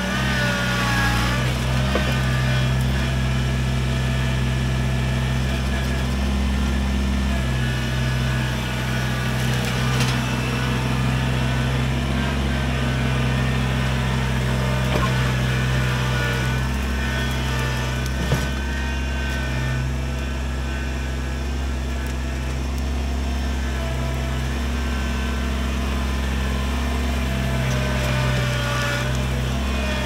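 Kubota BX23S compact tractor's three-cylinder diesel engine running steadily as the tractor works, with one sharp knock about eighteen seconds in.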